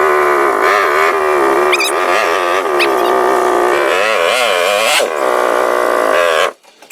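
Suzuki LTR450 sport quad spinning donuts on pavement: a loud, wavering high-pitched sound of the engine held at high revs and the tyres scrubbing. It cuts off abruptly near the end.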